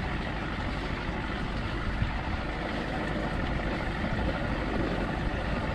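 A boat's motor running steadily, with wind and water noise.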